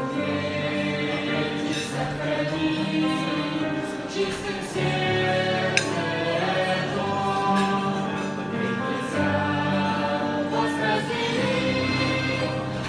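Choir singing a Christian wedding song, several voices holding notes in harmony.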